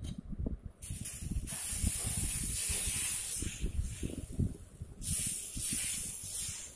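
Dosa batter sizzling on a hot tawa as it is poured from a ladle and spread in circles: a hiss that starts abruptly about a second in and fades after a couple of seconds, then a second hiss about five seconds in. Low knocks sound underneath throughout.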